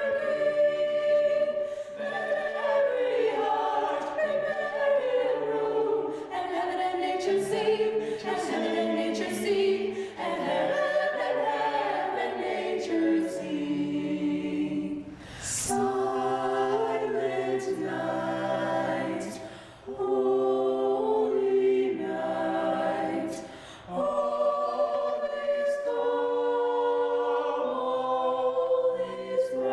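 A choir singing a cappella, holding chords that change every second or two, with short breaks between phrases about twenty and twenty-four seconds in.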